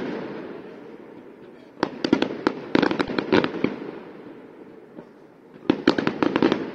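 Aerial fireworks going off: two quick clusters of sharp bangs and crackles, one about two seconds in and another near the end, with the echo of earlier bursts dying away at the start and a lull between the clusters.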